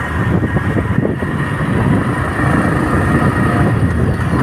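A vehicle running steadily on the move, a dense low rumble.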